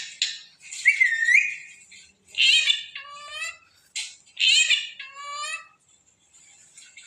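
Pet parrot calling: a short whistled note about a second in, then two longer calls, each starting harsh and trailing off into a whistly tone.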